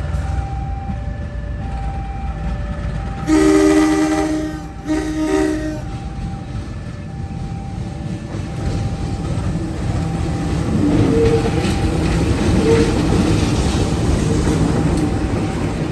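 A locomotive sounds two blasts on its horn, a long one then a shorter one, each a chord of several tones, over the rumble of the running train. The train's rumble grows louder later on.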